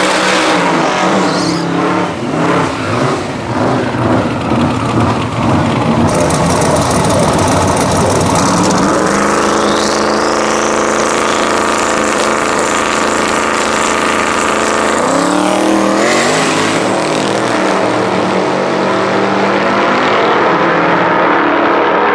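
Twin-turbo LS V8 drag car revving hard in uneven pulses through a smoky burnout, then running loud at steady high revs, with the engine pitch rising again about sixteen seconds in.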